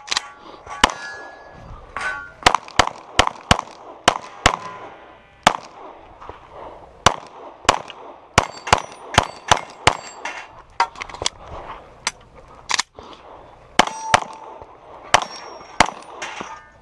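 Glock pistol fired in quick strings of shots with short pauses between strings, some of the shots followed by the brief ring of struck steel targets.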